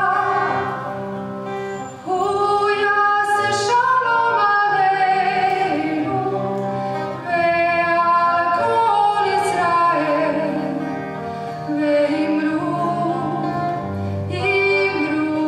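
Vocal music: a woman's voice singing a slow melody with long held notes.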